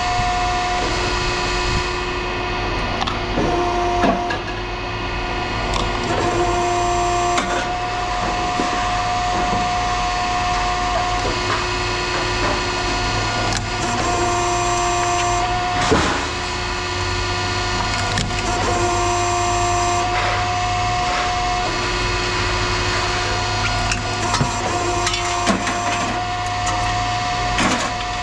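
Machinery running steadily, with a low hum under a pitched whine that cuts in and out every few seconds and occasional sharp knocks or clatter.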